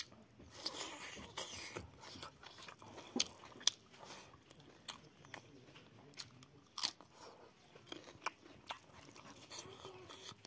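Close-up chewing of a hand-eaten meal of rice, boiled pork and raw vegetables, with irregular crunches and sharp mouth clicks, the loudest a few seconds in.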